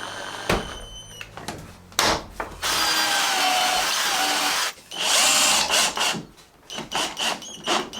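Cordless drill running in two bursts, a long one of about two seconds followed by a shorter one, with sharp knocks and clatter between.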